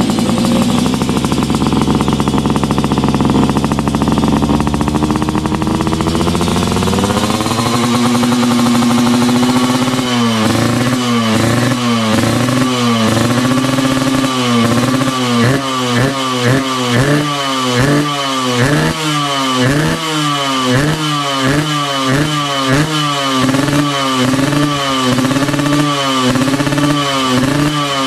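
Yamaha RX-King's two-stroke single-cylinder engine running through a Mbah Ranto Solo under-belly expansion-chamber exhaust made of rusted steel plate. It is held at steady revs for several seconds, then blipped repeatedly, about one rev a second, to the end.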